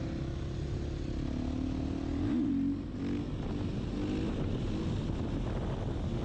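KTM EXC 500 single-cylinder four-stroke motorcycle engine running hard on the throttle with the front wheel up in a wheelie, with wind noise over the helmet microphone. About two seconds in, the engine note rises and falls quickly; after that it moves up and down in short steps as the throttle is worked.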